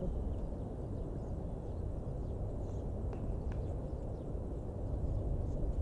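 Steady low outdoor background rumble at a tennis court, with two faint ticks a fraction of a second apart about three seconds in.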